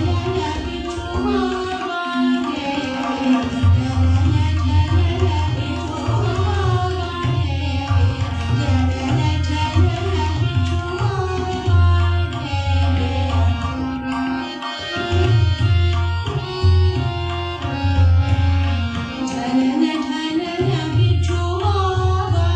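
Hindustani classical khayal in Raag Jaunpuri: tabla plays a steady rhythmic accompaniment under a female voice and harmonium carrying the melody.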